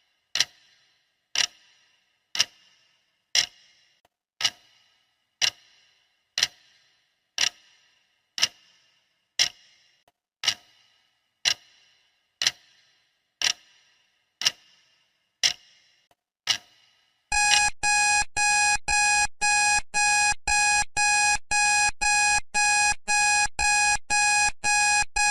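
Countdown timer's clock ticking, one sharp tick a second, until the countdown runs out about 17 seconds in. Then an alarm-clock alarm sounds, a loud pulsing tone repeating about twice a second.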